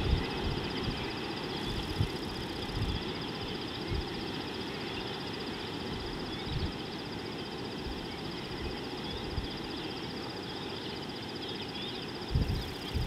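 Outdoor bush ambience picked up by an open microphone: a steady hiss with a continuous high pulsing whine, faint bird chirps, and occasional low thumps of wind buffeting the microphone, the strongest near the end.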